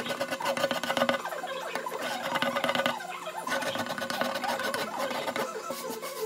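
Small irregular squeaks and clicks of wooden shell-inlay pieces being pressed and worked by hand into a tight-fitting routed recess.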